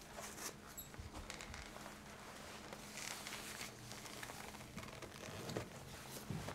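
Faint handling sounds of a gun belt and holster being taken off and laid down on a trunk: soft rustles and small clicks, with a few light knocks near the end as it is set down. A steady low hum runs underneath.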